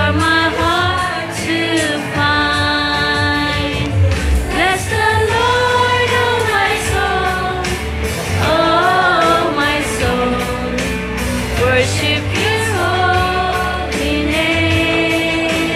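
Music: an upbeat worship song with singing over a steady beat and bass.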